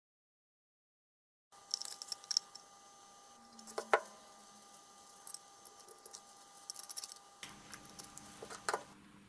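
Dead silence for about the first second and a half, then light clicks and taps of a steel vernier caliper and other small hand tools being handled on a workbench, with one sharper click about four seconds in and a cluster of clicks near the end.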